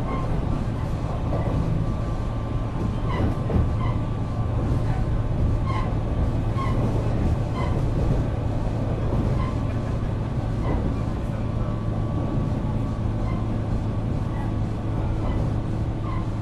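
JR West 475 series express-type EMU heard from inside a motor car while running: the MT54 traction motors hum steadily under the wheel-and-rail noise. Short high chirps recur irregularly, about once a second.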